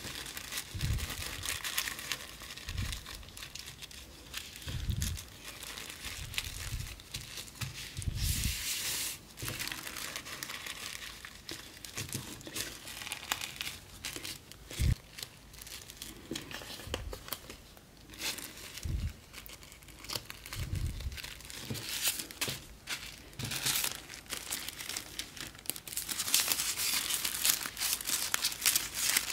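Thin tissue paper crinkling and rustling as gloved hands fold it into a packet, with scattered low knocks of hands on the cutting mat. The crinkling grows louder near the end as the wrapped packet is picked up.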